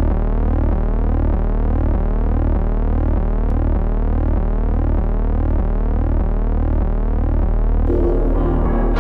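Synthesized intro music: a steady electronic tone that sweeps upward over and over, about two to three times a second, with piano music coming in near the end.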